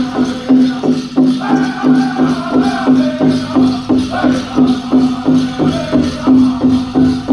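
Powwow drum group performing a chicken dance song: a big drum struck in a steady beat, a little over two beats a second, under a group of singers' high-pitched voices.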